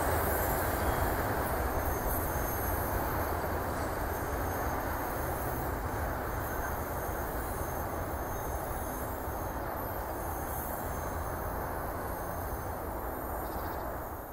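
Freight train of railway tank cars rolling past and away: steady wheel-on-rail noise that fades gradually as the last wagons go by.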